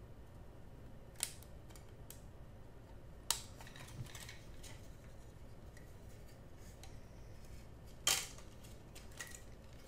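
Plastic model kit parts being handled and fitted: a few scattered sharp clicks and taps, the loudest about eight seconds in, over faint room noise.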